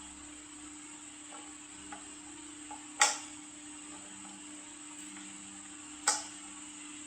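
Two sharp knocks about three seconds apart, over a steady low hum and a high hiss.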